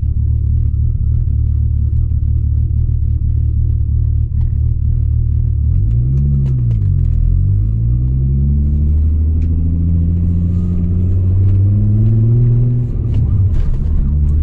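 Turbocharged VW Corrado VR6 engine running while driving. Its pitch rises and falls briefly about six seconds in, then climbs steadily as the car accelerates, dropping back near the end.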